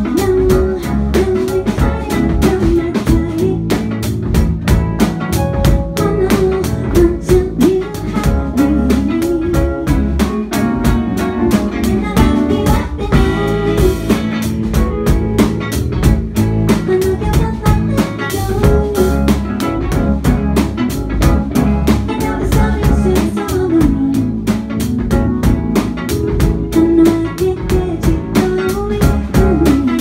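Live indie pop band playing: electric guitar and drum kit keeping a steady beat, with a woman singing over them.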